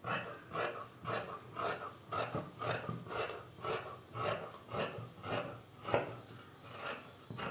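Large tailor's shears cutting through trouser cloth, a steady run of rasping snips at about two a second.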